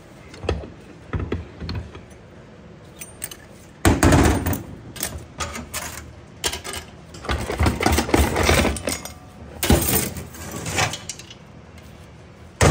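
TH350 transmission internals (the pump, intermediate clutch plates and drum) clanking and jingling as they are pulled out of the case by hand. The metallic clatters come in irregular bursts, loudest about four seconds in and again from about seven to ten seconds.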